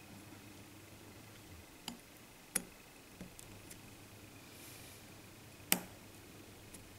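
A few small, sharp clicks, two louder ones about three seconds apart: the flex-cable connectors of a smartphone's digitizer and LCD being pressed into their sockets on the main board.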